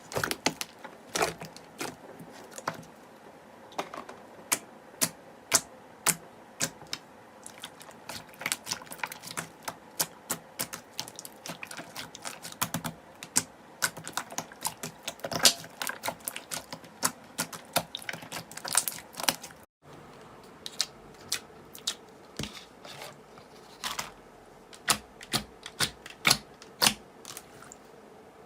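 Slime being pressed and poked by hand, giving irregular sharp clicks and pops, several a second, as air pockets in the slime burst. There is a brief break in the sound about twenty seconds in.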